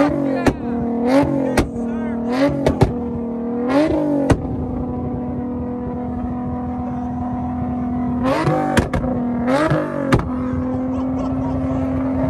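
Infiniti G-series coupe's V6 idling with a steady drone and blipped about six times, four quick revs then a pause and two more, each rev ending in sharp exhaust pops and cracks as fuel ignites in the exhaust and shoots flames from the tailpipes.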